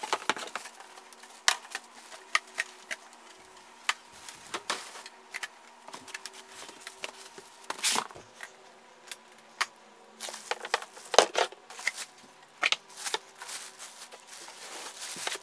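Unpacking noises: plastic wrapping crinkling and cardboard rustling as a welder is handled and unwrapped, in irregular clicks, knocks and rustles. Under them runs a steady low background hum.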